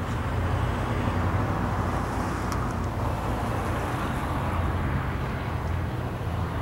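Cessna 152's four-cylinder piston engine droning at reduced power on approach to land, heard from the ground as a steady low rumble.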